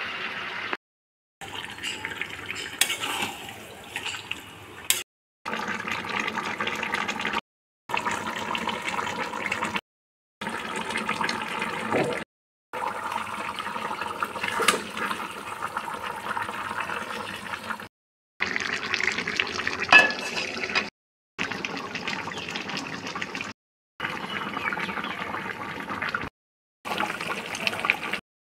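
Chicken cooking in oil and spices in a pan, sizzling and bubbling, heard as a run of short clips with sudden cuts to silence between them.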